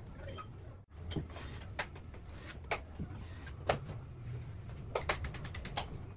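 Drywall taping knife scraping and tapping against a mud pan and the gypsum board as joint compound is spread: scattered sharp clicks and scrapes, with a quick run of ticks about five seconds in, over a low steady hum.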